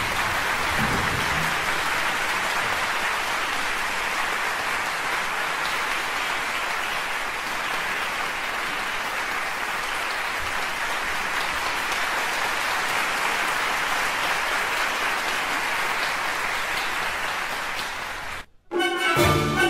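Large audience applauding steadily. The applause cuts off suddenly near the end and music begins.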